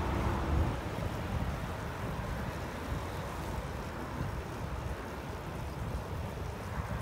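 Steady low rumble of wind buffeting the microphone of a moving bicycle, mixed with road traffic noise.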